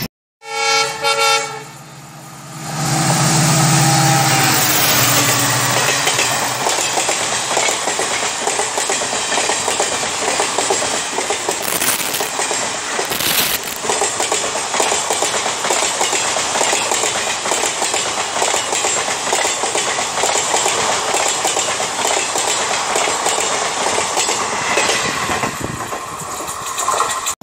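Locomotive horn sounding two short blasts as an express passenger train approaches, then the train running past close by at speed, the wheels of a long rake of coaches clattering steadily over the rail joints.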